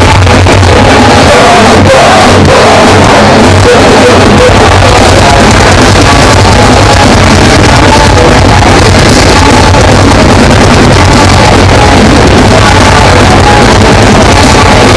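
Live rock band playing very loud, without a break.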